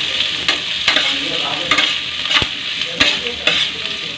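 Chopped onion, garlic and green chilli sizzling in hot oil in a kadhai, stirred with a spoon that scrapes and knocks against the pan several times.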